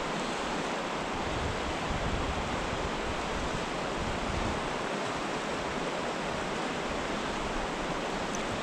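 Steady rush of a shallow, rocky river flowing in riffles over stones.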